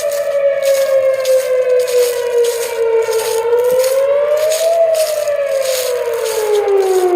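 Tornado warning siren sounding loud, its pitch sliding down, climbing again about three seconds in, then falling further as it winds down, with a regular pulsing hiss over the tone.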